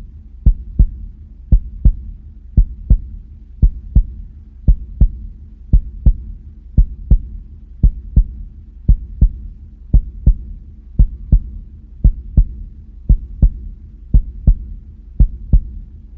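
Human heartbeat heard as steady 'lub-dub' pairs: the first and second heart sounds about a third of a second apart, repeating roughly once a second, over a low steady rumble.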